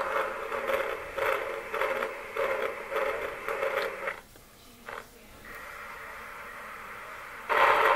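Lionel Hudson 4-6-4 toy steam locomotive running on its track: a steady hum with a rhythmic beat about twice a second. It cuts out about four seconds in, leaving a faint steady hum, and starts up loud again near the end.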